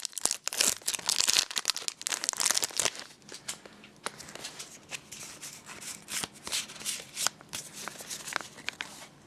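A Pokémon booster pack's foil wrapper crinkling as it is torn open, then quieter rustling and small ticks as the cards are handled.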